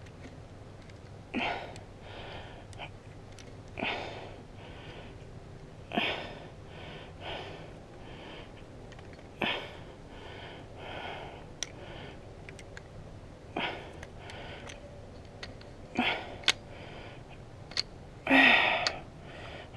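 A person breathing hard and sniffing in short noisy bursts every few seconds while straining at a task, with a few small sharp clicks from a plastic airsoft revolver being handled.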